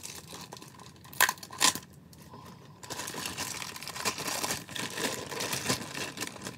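Packaging of a toy train set being handled: two sharp clicks about a second in, then continuous crinkling and rustling from about halfway on.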